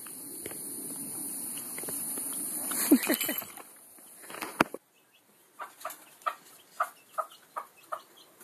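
Rustling and handling noise with a couple of sharp knocks, then a chicken clucking in short, evenly spaced calls, about two or three a second, through the second half.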